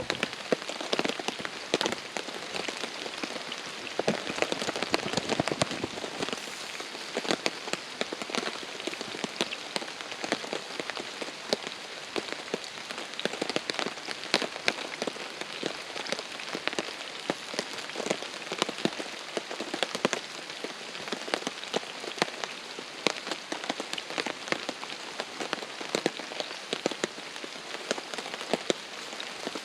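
Heavy rain falling on a tarp: a dense, steady patter of many drops striking close together.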